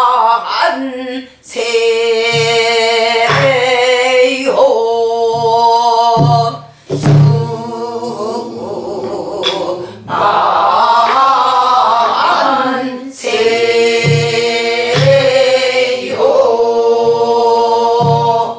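A woman sings a Namdo ipchang folk song in a strained, wavering pansori-style voice. She accompanies herself with low beats on a buk barrel drum, and there is one sharp stick knock about seven seconds in.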